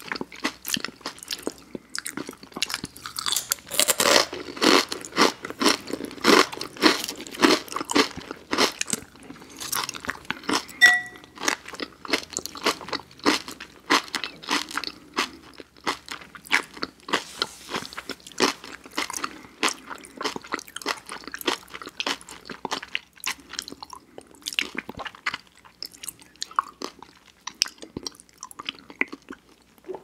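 Close-miked chewing and crunching of a chopped lettuce salad by two people eating, with wet mouth sounds. The crunches are dense and irregular and are loudest a few seconds in.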